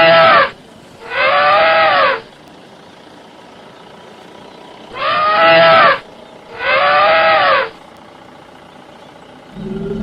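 Elephant trumpeting: four calls of about a second each, in two pairs, each rising and then falling in pitch. A low steady hum starts near the end.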